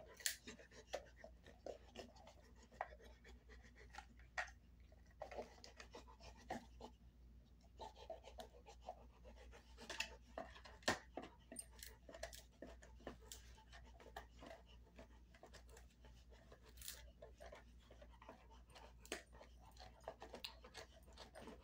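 Dog gnawing on a dried beef cheek roll: faint, irregular crunching and clicking of teeth working the hard chew.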